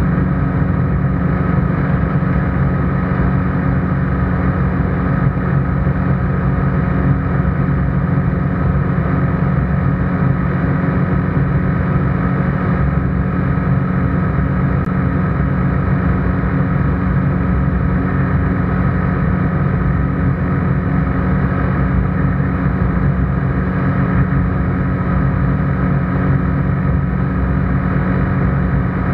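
ICP Bingo ultralight's engine and propeller droning steadily in flight, heard from inside the cockpit.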